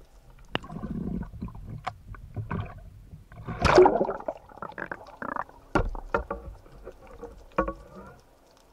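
Seawater sloshing and splashing around an underwater camera at the surface, with scattered sharp clicks and knocks. One louder splash comes a little before halfway.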